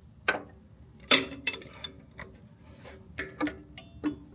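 Metal clinking and knocking of hand tools and steel motor-mount parts being handled during a motor mount swap: about seven sharp strikes with a brief ring, the loudest about a second in.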